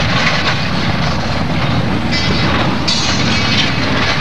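Derailing freight train: an overturned covered hopper car is dragged along the track and ballast. It makes a continuous grinding, scraping noise, with two spells of higher-pitched screech about two and three seconds in.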